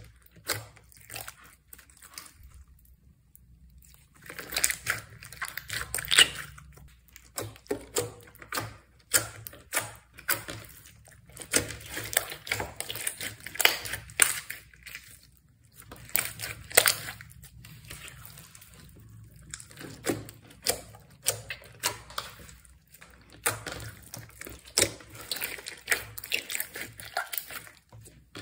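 Slime being kneaded, stretched and pressed by hand: rapid sticky clicks and wet pops in bursts, with short pauses between them.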